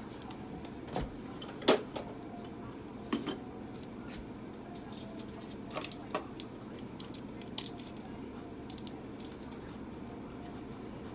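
Steady low room hum with scattered small clicks and metallic clinks, the loudest about two seconds in and a quick run of light ticks near the end.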